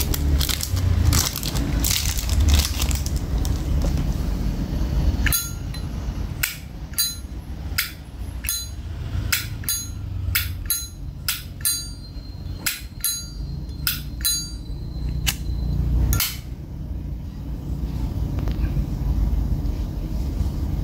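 Brass-cased Zippo windproof lighter, a silver-plated 1995 piece, being handled and then flicked open and snapped shut over and over: a quick run of about fifteen sharp metallic clicks, some with a short ring, showing off the lighter's lid and hinge sound.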